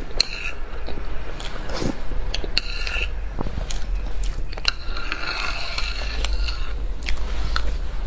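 Metal spoon scraping leftover cream off a plate, with small clicks of the spoon on the plate and the mouth sounds of eating; the longest scraping comes about five to seven seconds in.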